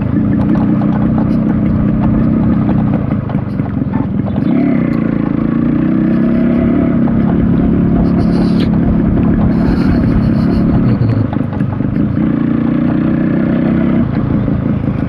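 Yamaha RX100's two-stroke single-cylinder engine running steadily as the motorcycle is ridden, its pitch shifting about four seconds in.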